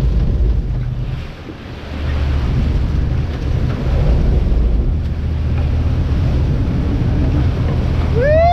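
Boat engine running low and steady under wind buffeting the microphone and water rushing past the hull, dipping briefly about a second and a half in. Near the end comes a short rising-and-falling whoop.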